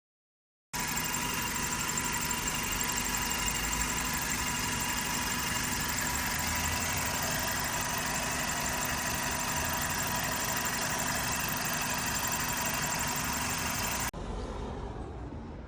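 Hyundai Getz engine idling steadily, starting suddenly under a second in and cutting off abruptly about 14 seconds in, leaving a quieter background.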